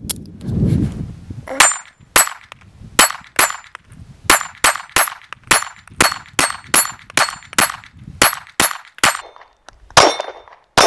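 P80-built Glock 19 Gen 3 9mm pistol firing a fast, steady string of about eighteen shots, roughly two to three a second, starting about a second and a half in.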